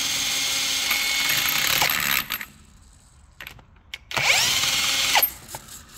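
Cordless drill with a 24 mm socket spinning a Bosch alternator by its pulley nut, in two runs: one of about two seconds, then a short spin-up with a rising whine about four seconds in. The alternator bearing noise it brings out is taken by the mechanic to be worn alternator bearings.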